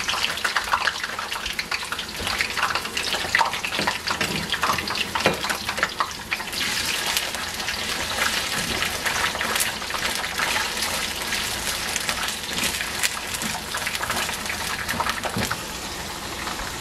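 Fresh wax and green beans sizzling as they hit hot canola oil in a wok, with the clatter and scrape of a spatula stirring them, the clicks thickest in the first few seconds before the sizzle settles into a steadier hiss.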